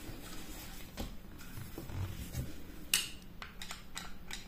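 Cloth rubbing over a Makarov pistol, then a sharp metallic click about three seconds in and a few lighter clicks as the pistol is handled.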